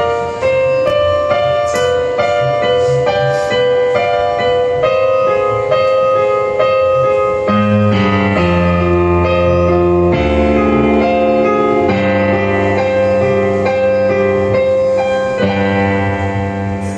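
Piano-like keyboard playing a slow melody of separate notes over held chords. A deep bass line comes in about eight seconds in.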